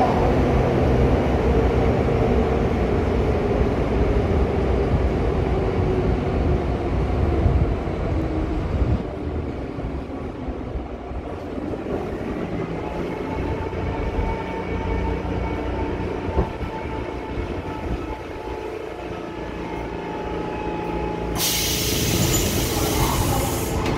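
Subway car with GEC chopper control running through a tunnel, then braking into a station. Heavy wheel and running noise drops off after about nine seconds, leaving the chopper's thin whining tones, which sag slightly in pitch as it slows. A loud hiss rises near the end as the train comes to a stop.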